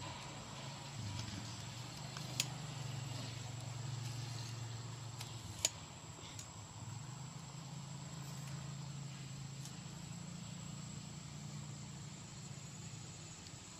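Quiet outdoor ambience: a steady low hum, a thin steady high-pitched drone, and two sharp clicks about two and a half and five and a half seconds in.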